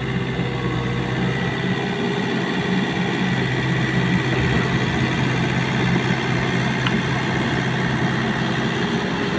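Kobelco SK50P mini excavator's diesel engine running at a steady speed while the arm is worked to lower a hanging load.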